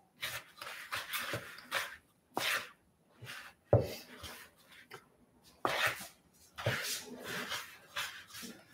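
Wooden spoon stirring and scraping dry, sandy gingerbread dough in a mixing bowl, in a run of irregular rough scrapes. There is a sharp knock about four seconds in.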